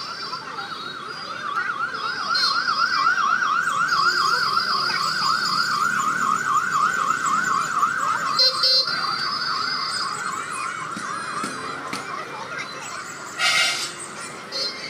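Electronic siren in a fast warble, its pitch swinging rapidly up and down. It comes in about a second in, is loud for several seconds and then fades. A short burst of noise comes near the end.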